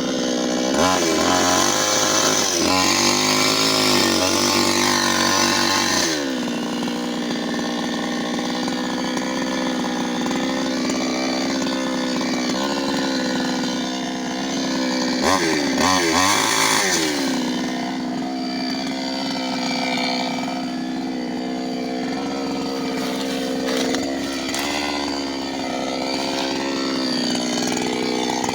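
New West 598X two-stroke chainsaw running continuously, with two louder stretches where the engine note wavers: one in the first six seconds and a shorter one about halfway through.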